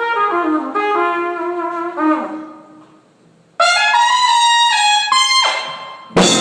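Solo trumpet playing two short melodic phrases, the first stepping downward and the second higher, with a gap of about a second between them. Near the end comes a sudden loud hit that rings on.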